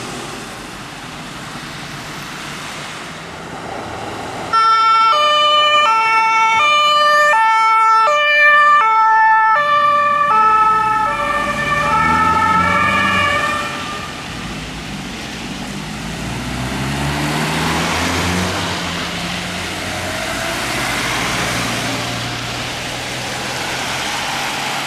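German two-tone ambulance siren switching on abruptly about four seconds in, alternating steadily between two pitches. It drops slightly in pitch as the ambulance passes and fades out after about ten seconds. Then the ambulance's engine accelerates away with tyre hiss on the wet road.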